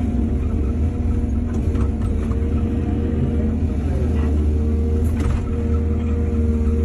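Excavator's diesel engine running steadily with a heavy low rumble, its pitch dipping briefly about four seconds in. A few short clanks or scrapes come about a second and a half in and again near five seconds.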